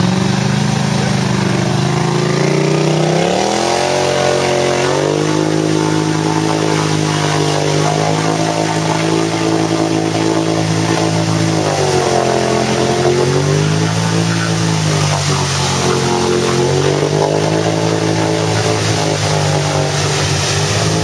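ATV engine revving hard under load as the quad churns through a deep mud hole, its spinning wheels throwing mud. The revs climb about three to four seconds in and dip twice briefly near the middle before rising again.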